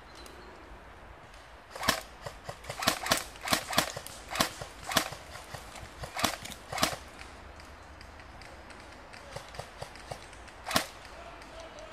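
Airsoft guns firing single shots: a quick irregular string of about a dozen sharp cracks, then one last shot near the end.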